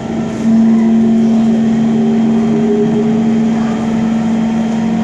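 Kawasaki C151 train's traction motor drive starting to pull away: a loud steady electric hum sets in about half a second in, with a fainter whine rising in pitch above it.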